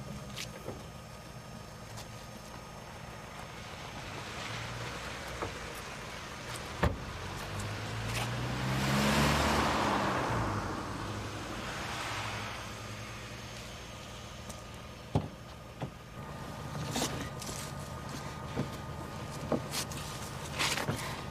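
A car drives past on a wet road. Its engine and tyre hiss swell to a peak and fade away over several seconds, over a low steady hum, with a few sharp knocks before and after.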